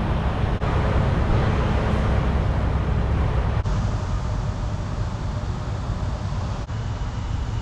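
Steady road and engine noise of a car driving at highway speed, heard from inside the cabin, a deep rumble with tyre hiss above it, broken by brief dips about a second in, near the middle and near the end.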